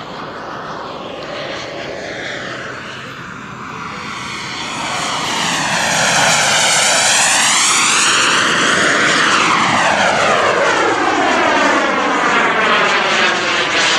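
Small gas-turbine engine of a radio-controlled BAE Hawk model jet making a close pass. Its steady rushing whine swells about a third of the way in and stays loud, with a sweeping, phasing sound that rises and falls as the jet goes by.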